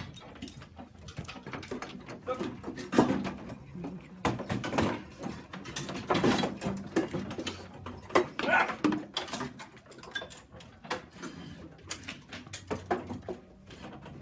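Irregular clicks, knocks and clatter of hand tools and kart parts being handled as a pit crew changes a kart's engine, tyres, battery and fuel tank, in louder clusters several times.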